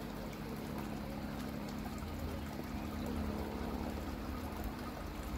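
Water trickling and pouring steadily in a koi vat, with a low steady hum under it that fades out near the end.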